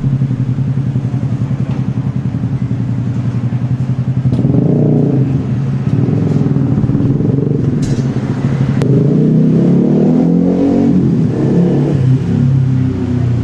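Motorbike engines running close by in street traffic, one rising in pitch as it accelerates about nine to eleven seconds in.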